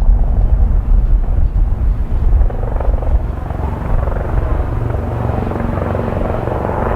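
Helicopter rotor and turbine engine noise. It is drowned for the first two or three seconds by strong wind buffeting the microphone, then settles into a steadier rotor beat.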